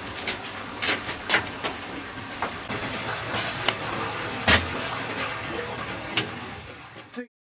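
Bathhouse boiler-room machinery running with a steady high whine, with scattered clicks and knocks, the loudest about four and a half seconds in. The sound fades away near the end.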